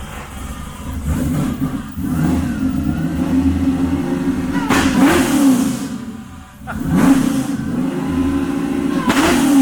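Supercharged 408-cubic-inch stroker LS V8 running and being revved, with two sharper throttle blips about halfway and near the end and a short drop in between.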